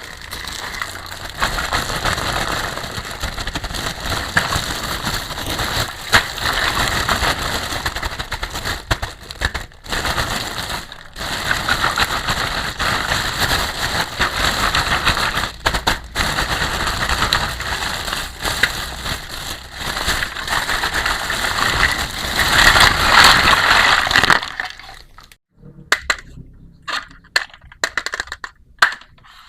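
Plastic packaging being crinkled and crackled by hand while a toy set is unwrapped, a dense, continuous rustle that stops after about 24 seconds. A few light clicks and taps follow.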